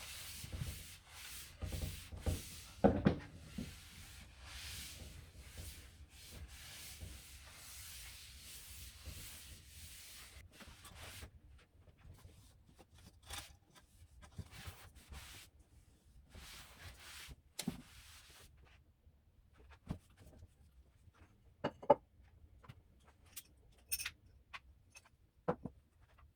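A surface being scrubbed by hand in repeated rubbing strokes for about ten seconds, then scattered light knocks and clicks as things are handled.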